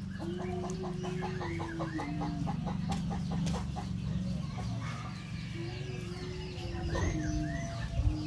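Chickens clucking, a quick run of clucks in the first couple of seconds, with high curved chirps and a steady low drone that comes and goes.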